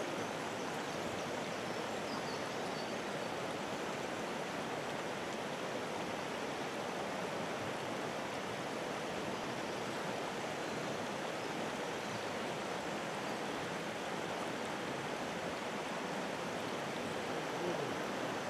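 River rapids: fast water rushing steadily over and around boulders.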